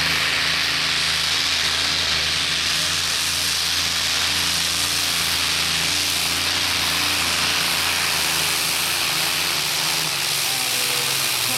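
3.5-tonne Limited-class pulling tractor's engine running at full throttle under load as it drags the weight sled down the track: a loud, steady drone.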